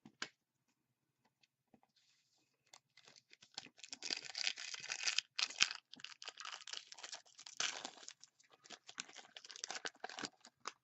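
A foil trading-card pack wrapper being torn open and crinkled by hand. After a few quiet seconds with small clicks, the crackling runs almost without a break until near the end.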